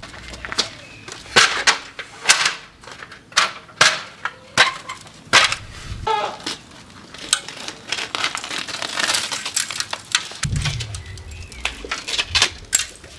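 Hand tools scraping and knocking on masonry in a quick, irregular series of sharp strokes, with a short low rumble about ten seconds in.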